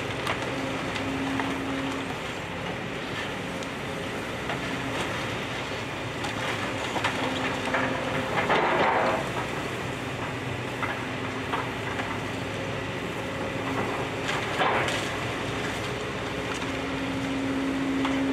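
Case excavator's diesel engine running, with a hydraulic whine that swells now and then as it works. Demolition debris crunches and cracks under the machine, loudest about nine seconds in and again around fifteen seconds.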